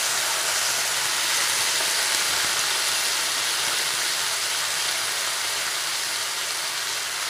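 Chopped mixed vegetables sizzling in hot spiced oil in a kadhai, a steady hiss just after they have been tipped into the pan.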